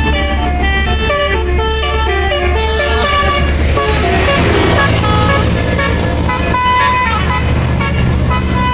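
Bus 'telolet basuri' multi-tone musical horn playing a quick jingle of changing notes over the bus's engine rumble, with a brief rush of noise around the middle.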